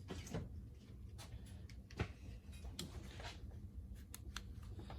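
Faint scattered clicks and knocks of plastic parts being handled in a car's engine bay, the sharpest about two seconds in, over a low steady hum.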